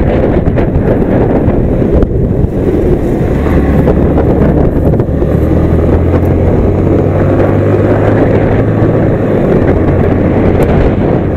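Loud wind buffeting on the microphone of a moving motorcycle, with the Yamaha MT-15's single-cylinder engine humming steadily underneath from about a third of the way in. The sound cuts off abruptly at the end.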